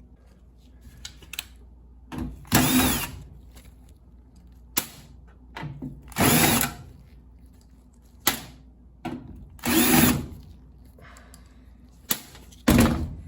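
Cordless drill/driver with a 1/4-inch nut driver bit spinning out screws from a dryer's panel in about four short bursts, its motor pitch rising and falling each time, with small clicks of handling and parts between.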